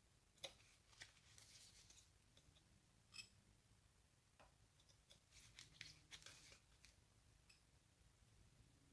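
Near silence, broken by faint scattered clicks and scratches of multimeter probe tips touching and sliding on a phone's battery connector during a short-circuit check.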